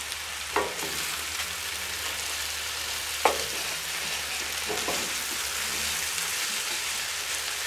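Mushrooms, ham and shallots sizzling in clarified butter in a cast-iron skillet while being stirred with a wooden spatula. The spatula knocks sharply against the pan twice, about half a second in and again about three seconds in.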